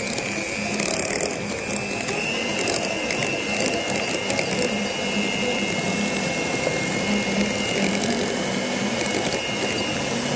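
Electric hand mixer running steadily, its beaters churning through thick cream cheese in a glass bowl, with a steady high motor whine over the churning.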